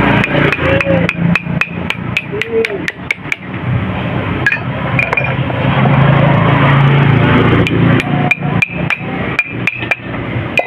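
Quick runs of light hammer taps on metal, about four or five strikes a second, in two bursts with a pause between, over a steady low hum.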